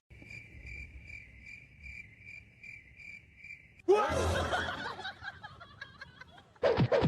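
Cricket chirping, a high pulsing trill about two or three chirps a second, which cuts off abruptly a little before halfway. A louder, jumbled burst of sound follows.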